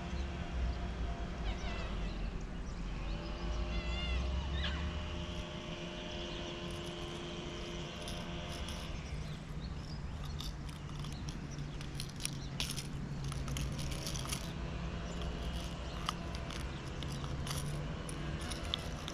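A steady engine drone whose pitch steps a few times, with scattered light clicks over it.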